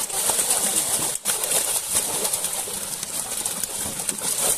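Pond water splashing and churning as a dense mass of fish thrashes inside a seine net drawn tight in the shallows. There are voices or cooing sounds in the background.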